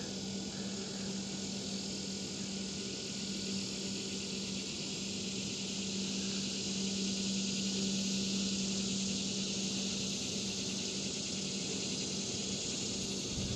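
Steady insect chorus, a high, even buzzing drone typical of late-summer crickets or katydids, over a faint steady low hum.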